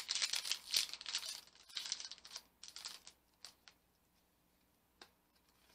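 Foil booster-pack wrapper crinkling and tearing as it is ripped open, for about the first two and a half seconds, followed by a few light clicks of the cards being handled, with one more click near the end.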